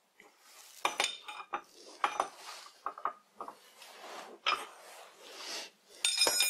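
Steel tools and lathe parts clinking and scraping as the tailstock is adjusted: several separate metal clinks with short ringing, and a louder ringing clank near the end.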